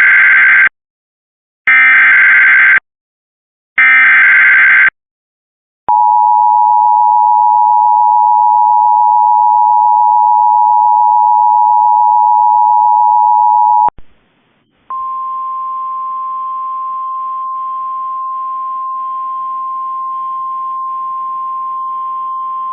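Emergency Alert System signals: three loud bursts of SAME header data tones, then about eight seconds of the steady two-tone EAS attention signal, then after a short break a single steady alert tone, the NOAA Weather Radio warning tone, which cuts off near the end.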